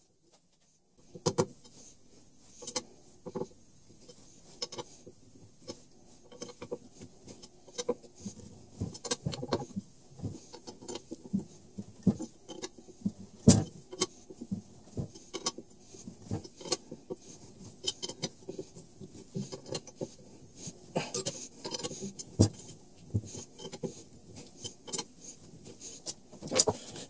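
A punch striking a metal C-channel to put small divots at the marked hole positions: a run of irregular sharp clicks and knocks, the loudest about halfway through, with handling noise between.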